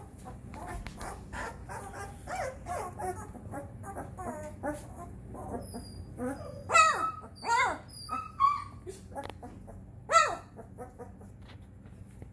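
Three-week-old Newfoundland puppies whimpering and squeaking in a run of short high cries that bend up and down. A few louder yelps come about seven and ten seconds in.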